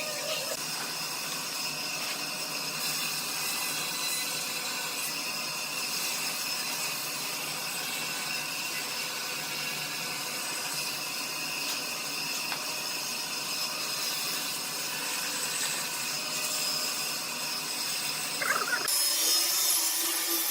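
A power tool working wood, running steadily. Near the end the sound changes abruptly to a brighter, hissier tone.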